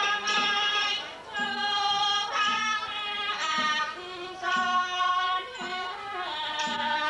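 Thai classical piphat ensemble music accompanying a rod-puppet dance: a melody in long held notes that change pitch every second or so, over a low drum stroke about once a second.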